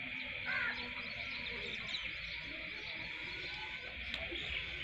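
Steady outdoor insect chorus, with birds chirping briefly over it a few times.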